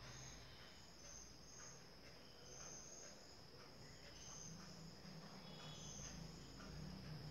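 Faint crickets chirping: short high chirps, about one or two a second, over a steady high ring, with a faint low hum underneath.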